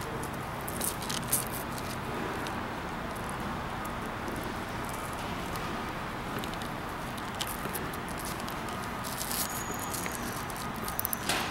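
Hands fastening a plastic zip tie around a cable bundle on a massage chair's metal frame: rustling and scattered small clicks over a steady background hiss. There are a few sharp clicks about a second in and a quick run of clicks near the end.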